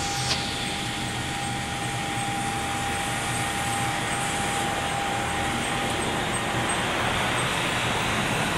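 1952 American LaFrance fire engine running as it drives slowly across a parking lot toward the camera, a steady engine noise that grows slightly louder as it nears, with a thin steady high whine that stops about seven seconds in.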